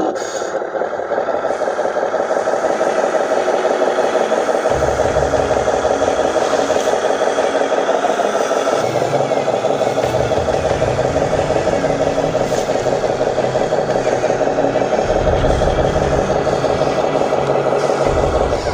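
Remote-control truck running steadily, its motor and drivetrain making a dense, fast-pulsing whine, with a low rumble that comes and goes several times.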